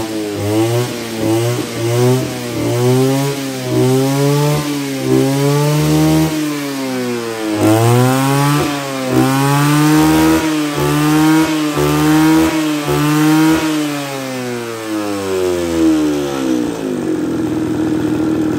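Mitsubishi TL231 brush cutter's 23cc two-stroke engine being revved up and down about once a second, then dropping back to a steady idle near the end.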